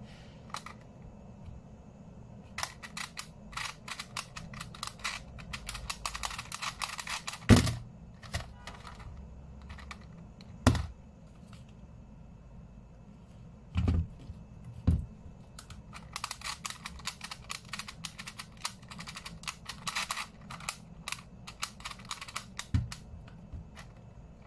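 Rubik's Clock being solved quickly: rapid clicking of its pins and dials in two long runs, with a few louder thumps in between.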